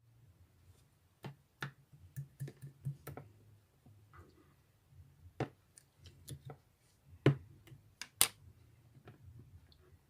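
Irregular small clicks and taps of objects being handled, with two sharper clicks about seven and eight seconds in, over a faint low hum.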